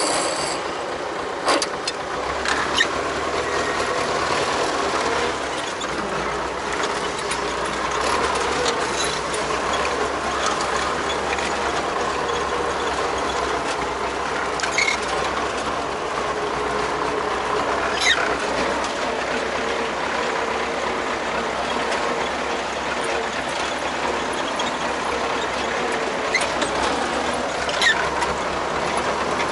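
Vehicle engine running steadily while driving along, with scattered short clicks and squeaks from the vehicle rattling.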